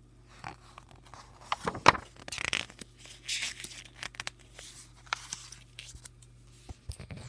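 A page of a paperback graphic novel being turned by hand: a run of paper rustling and crinkling, loudest about two seconds in.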